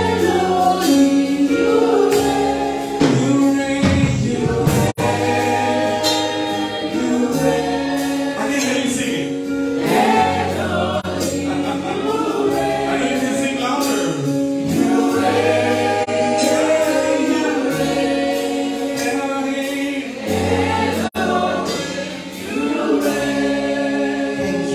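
Gospel worship singing: a lead singer and a group of backing singers, with sustained instrumental accompaniment holding low chords underneath.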